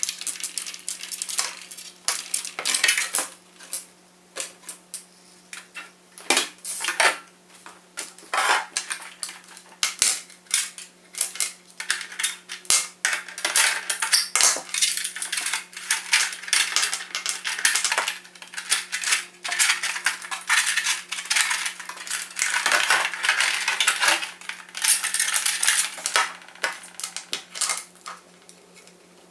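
Irregular clicking and clattering of small hard parts being handled and fitted together, with a faint steady hum underneath.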